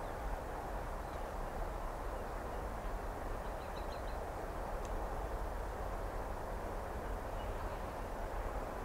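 Steady low rumble of a distant approaching diesel-hauled freight train, with a few faint bird chirps about four seconds in.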